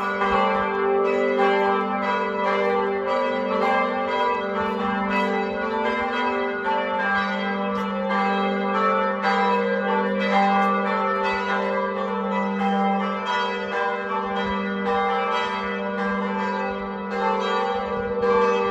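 Several church bells ringing together, strikes overlapping a few times a second over a steady, long-held low hum.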